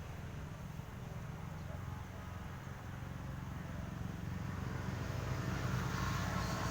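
A steady low mechanical drone, a pitched hum that grows gradually louder toward the end.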